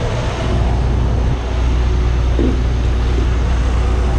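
Semi-truck's diesel engine idling close by, a steady low rumble that swells as the front of the truck is passed, with some wind noise on the microphone.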